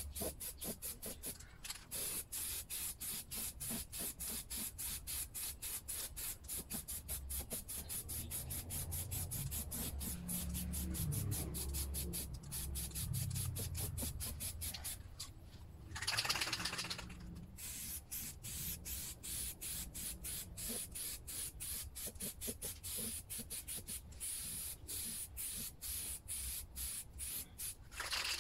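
An aerosol can of clear-coat spray paint hissing in a longer burst a little past halfway and again right at the end, over a fast, regular ticking that runs throughout.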